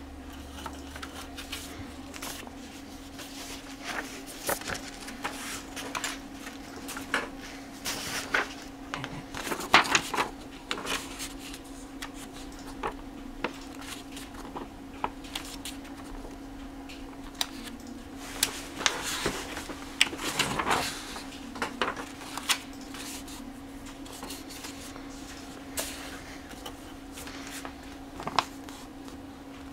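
Paper instruction booklet and sheets being handled and leafed through: irregular rustles and crackles of paper pages, with light taps against a cardboard box. Under them runs a steady low hum.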